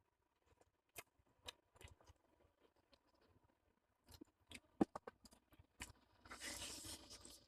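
Faint eating sounds from a meal of chicken on the bone and noodle soup: scattered small clicks and crunches, then about a second of louder noisy sound near the end.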